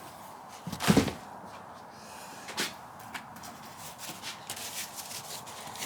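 Spare car parts being handled and rummaged through: a loud knock about a second in as something is set down, then a lighter knock and a run of small clicks and rustles.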